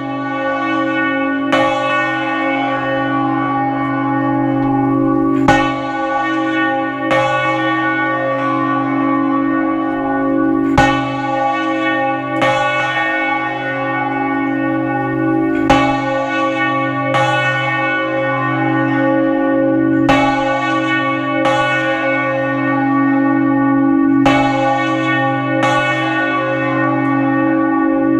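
Large church bell rung a volteo, swung full circle in its headstock. The clapper strikes twice per swing, about a second and a half apart, roughly every five seconds, and a steady ringing hum carries between the strikes.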